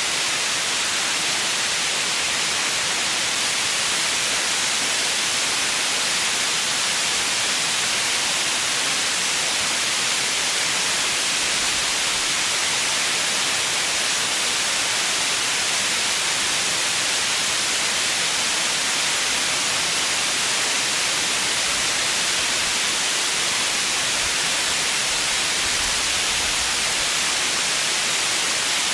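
Steady white noise: an even, unchanging hiss, brightest in the high end.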